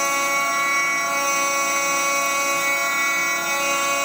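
CNC mill spindle running at speed as it face-mills the machine table flat under flood coolant, giving a loud, steady, high-pitched whine of several tones over a light hiss.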